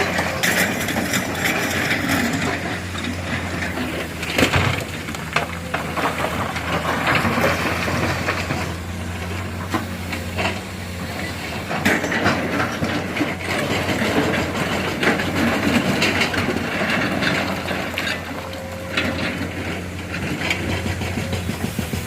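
Excavator's diesel engine running steadily while it digs and loads granite, with irregular crunching and knocking of rock in the bucket and on the truck bed; a sharp bang about four and a half seconds in.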